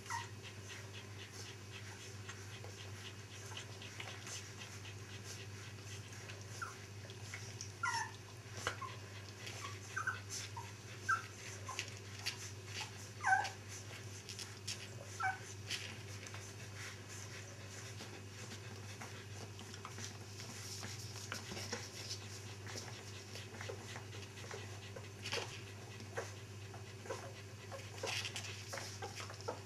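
Puppies whimpering, with short high squeaks, some falling in pitch, bunched between about 7 and 16 seconds in. Small clicks are scattered through, over a steady low hum.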